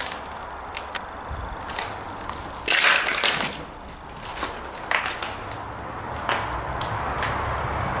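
Footsteps crunching over rubble and broken plaster on a debris-strewn floor: scattered crackles and snaps, with one louder, longer crunch about three seconds in.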